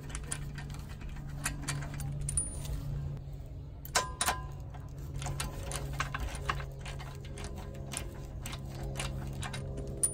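Breaker bar and socket turning a loosened lug nut off a wheel stud: a run of irregular metallic clicks and ticks, with a brighter ringing clink about four seconds in, over a low steady hum.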